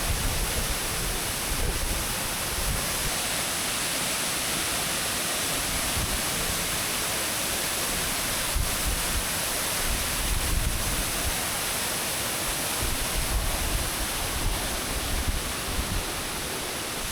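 Waterfall, close by, falling steadily into its pool: a constant, even rush of water, with gusts of wind rumbling on the microphone now and then.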